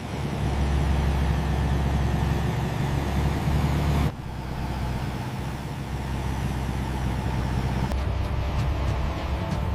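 A steady low mechanical rumble, engine- or machinery-like, that changes abruptly about four seconds in and again about eight seconds in.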